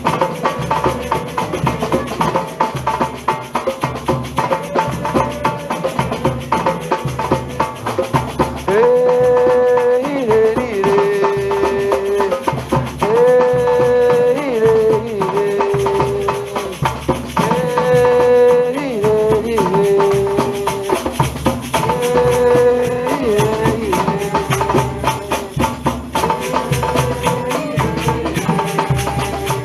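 Batucada percussion group playing: drums and shakers keep a fast, steady rhythm. About nine seconds in, a melodic line of long held notes joins, repeating in short phrases.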